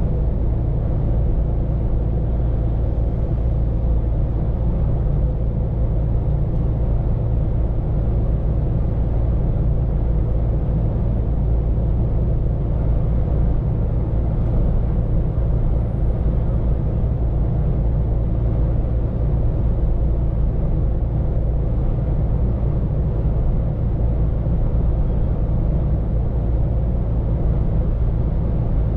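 Scania P410 truck driving at a steady pace, heard from the driver's seat inside the cab: an unchanging low engine and road rumble.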